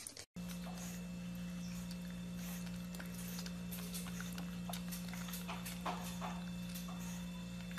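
Pug puppy nibbling at a hand-held carrot, with scattered small clicks and crunches, over a steady low hum.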